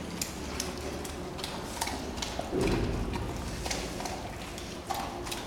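Large dog eating from a stainless steel bowl: irregular clicks and clinks of teeth and muzzle against the metal bowl, several a second, with one louder bump about two and a half seconds in.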